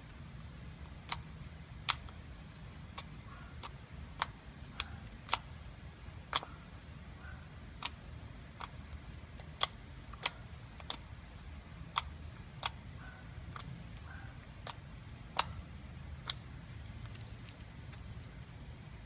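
Slime being squeezed and pressed by hand, giving scattered sharp clicks and pops, roughly one a second and uneven in loudness, over a low steady hum.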